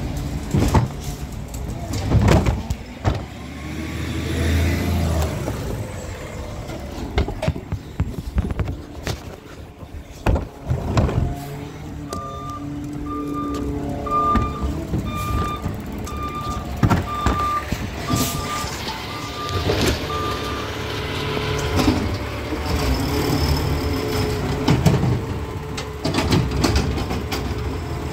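Peterbilt 520 McNeilus ZR automated side-loader garbage truck running, with its back-up alarm beeping steadily about a dozen times midway, and loud knocks now and then.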